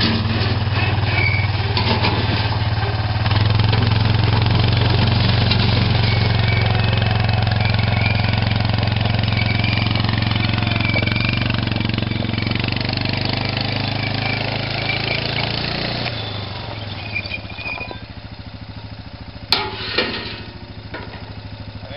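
ATV engine running steadily close by, then fading as the quad drives away. Two sharp knocks about half a second apart come near the end.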